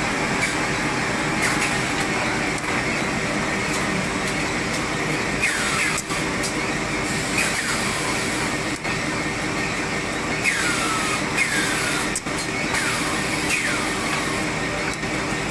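High-speed paper napkin folding and packaging machine running: a steady, dense mechanical noise, with short falling whine-like tones that recur every second or so, more often in the second half.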